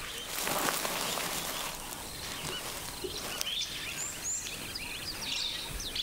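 Outdoor bush ambience with small birds chirping, short high calls scattered over a steady background hiss and growing busier from about halfway through.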